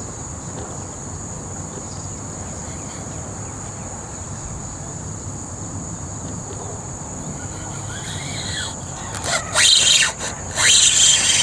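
Steady, high-pitched chorus of insects buzzing over a low background rumble. Near the end, a few loud bursts of splashing cut in.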